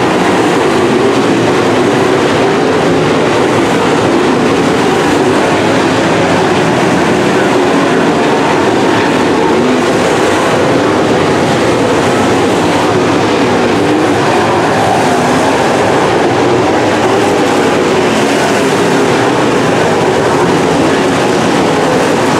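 A field of dirt super late model race cars running at speed around the track, their V8 engines merging into one loud, steady engine noise whose pitch wavers as the cars move through the turns.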